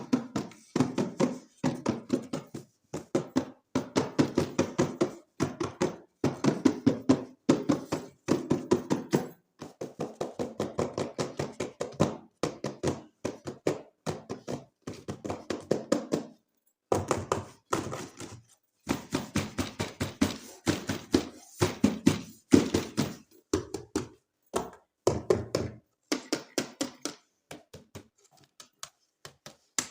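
Hands tapping and handling toy packaging: quick runs of clicks and taps in short bursts, with brief pauses between them.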